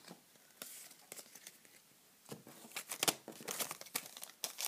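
Foil wrapper of a Pokémon booster pack crinkling as it is handled: a few faint clicks, then a quick run of sharp crackles from a little past halfway.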